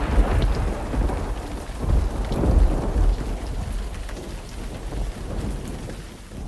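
Heavy rain with rolling thunder, the low rumble swelling in the first half and the whole sound fading away toward the end.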